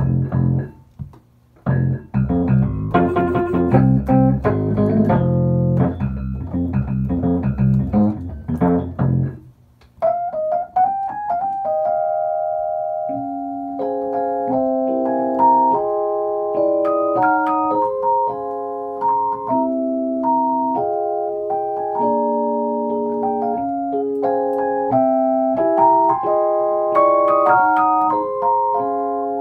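Fender Rhodes electric piano being played. For about the first nine seconds it plays heavy, dense chords low on the keyboard. After a short break it moves to lighter, sustained chords and melody notes in the middle register.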